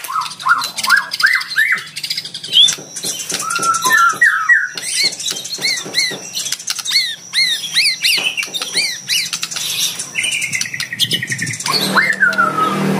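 White-rumped shama (murai batu) singing a fast, varied song of whistled notes, swooping glides and rapid runs of sharp repeated chirps. A low steady hum comes in near the end.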